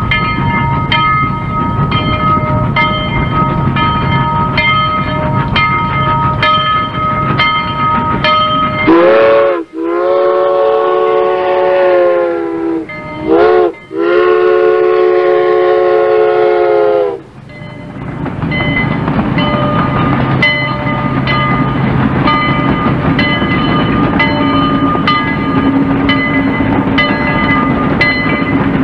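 A warning bell rings steadily, struck about twice a second. About nine seconds in, a train sounds two long horn blasts, each swelling up into pitch. The bell then rings on over the low rumble and clatter of the passing train.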